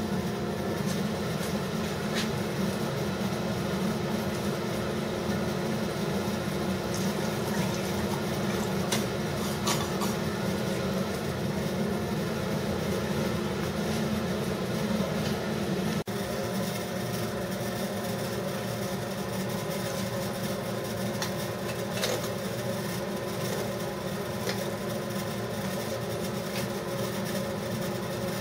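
Steady low mechanical hum of a running motor, with a few faint steady tones over it.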